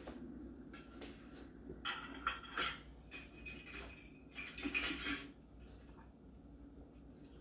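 Dishes and cutlery clinking and clattering during hand dishwashing at a sink. The clatter comes in two spells, one about two seconds in and a louder one about two-thirds through.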